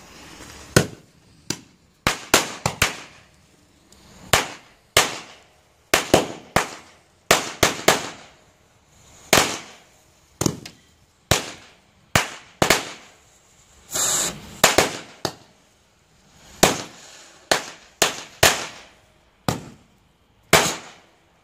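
Firecrackers going off on the ground, a long irregular series of sharp bangs, often one or two a second and sometimes in quick clusters, with a brief hissing crackle about two-thirds of the way through.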